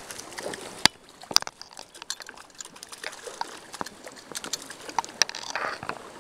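Water splashing and sloshing with a run of sharp clicks and knocks, the loudest a little under a second in and again about half a second later, and a short splash near the end.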